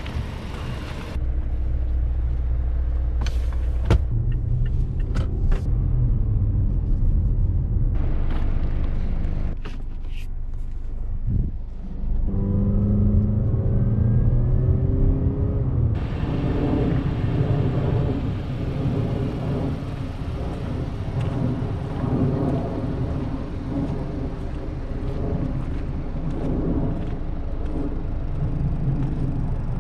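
2024 Mazda CX-5 2.5 S driving, its 2.5-litre four-cylinder engine running under steady road and tyre rumble. The engine note rises about twelve seconds in as the car accelerates, and the sound changes abruptly several times.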